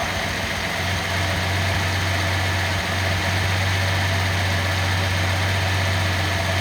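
Nissan L28ET turbocharged 2.8-litre inline-six idling, with its injector for cylinder 5 just reconnected during a cylinder-by-cylinder injector check. About a second in, the idle settles into a steady low hum.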